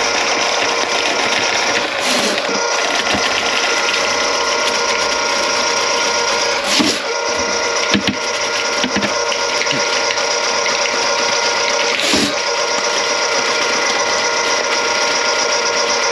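Kitchen sink drain, partly clogged with grease, gurgling with a few short glugs over a steady mechanical hum with a whine.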